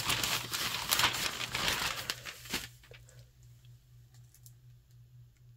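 Rustling and crinkling noise for about two and a half seconds, then quiet with a few faint clicks over a low steady hum.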